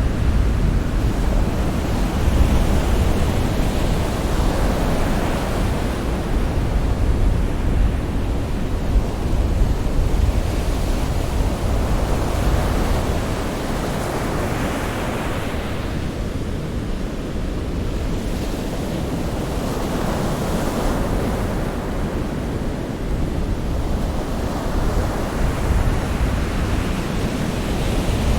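Sea waves breaking and washing on a shore in a steady, continuous rush, swelling now and then as a wave comes in, with a deep low rumble under it.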